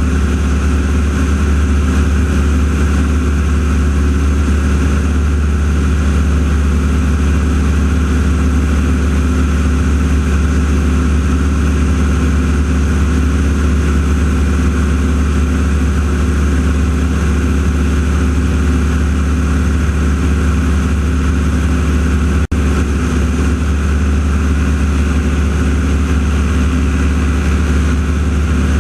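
North American T-6 Texan's radial piston engine running steadily in flight, a constant loud drone heard from on board the aircraft. A brief dropout breaks the sound about three quarters of the way through.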